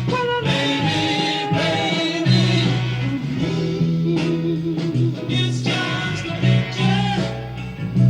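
Soul music playing: a band with a steady bass line, and a singer's wavering voice.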